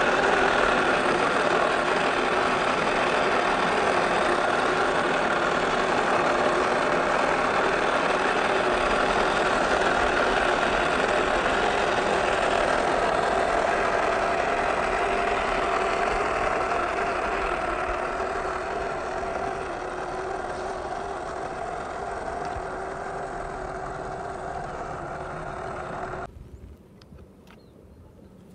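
A steady, engine-like motor hum with a fixed pitch. It fades gradually over its last ten seconds, then cuts off abruptly near the end.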